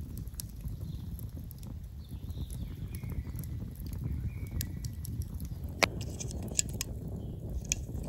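Wood campfire burning, with many small irregular crackles and pops over a low steady rush, and one sharper pop a little before six seconds in.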